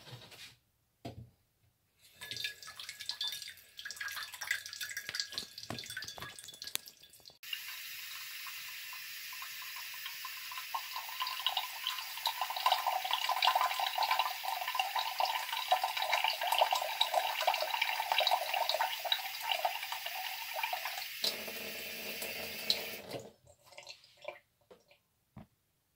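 Water running from a kitchen tap into a stainless steel saucepan of rice, a steady splashing hiss that goes on for about fifteen seconds and stops suddenly when the tap is shut off. Before it come clicks and clatter of the pan being handled.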